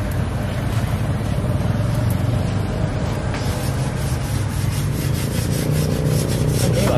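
Metal spatula scraping and pressing on a flat iron griddle as flatbreads cook, over a steady low hum; the scraping strokes come thicker from about halfway in.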